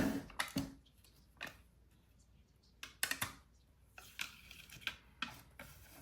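Small, sharp clicks and taps, irregularly spaced, of tweezers, screwdriver and small parts being handled while reassembling an iPhone 11. The loudest tap comes right at the start, with a quick cluster about three seconds in.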